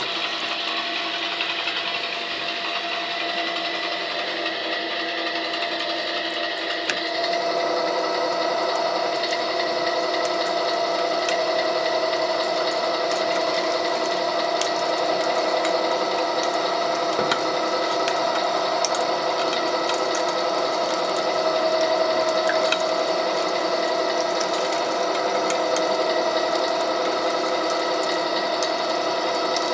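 Wheeler-Rex 6590 gear-driven pipe threading machine running at slow speed, a steady machine whine with several held tones. About seven seconds in it gets a little louder as the dies bite into the pipe and start cutting the thread.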